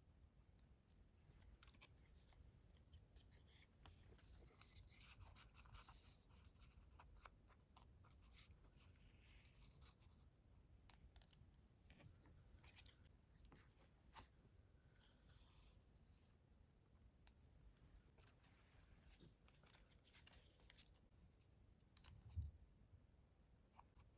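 Faint paper-crafting sounds: paper rustling and scratching, with scattered small clicks and a soft thump near the end.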